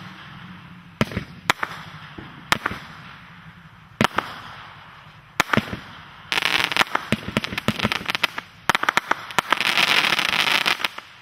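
Vulcan Fireworks' Knockout Punch multi-shot aerial firework going off. Single sharp bangs of shots and bursts come about a second apart, then from about six seconds in there are two long spells of dense crackling and popping, which die away near the end.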